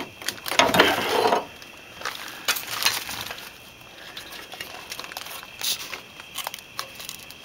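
Hand tools and loose metal suspension parts clinking and knocking during a car's front suspension teardown, with a longer scraping rattle about a second in, then scattered single clicks.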